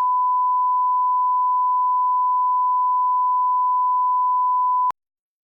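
A steady 1 kHz sine test tone, the line-up reference tone that goes with colour bars, held at one pitch and level before cutting off suddenly near the end.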